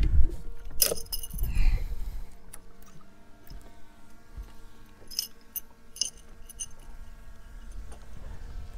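Knocking and clattering of fishing gear being handled on an aluminium boat deck in the first two seconds, then soft background music with sustained tones and a few light metallic clinks.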